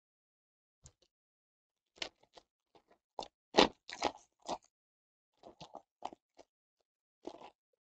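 Plastic cello pack of Panini Prizm football cards crinkling as it is handled and torn open, in short bursts of crackle, the loudest about three and a half seconds in.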